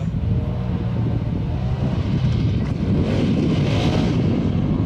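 Polaris RZR Pro XP side-by-side's engine running under throttle on the dirt track, growing steadily louder as it approaches, with wind buffeting the microphone.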